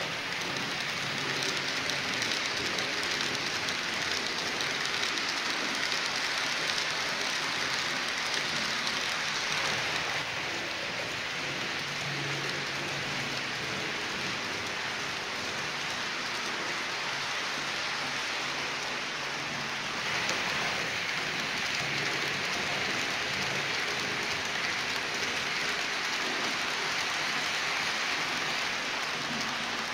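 H0-scale model freight train of tank wagons running along the track: a steady rattling hiss of the wheels on the rails with a faint low hum underneath, easing off somewhat in the middle and swelling again about two-thirds of the way through.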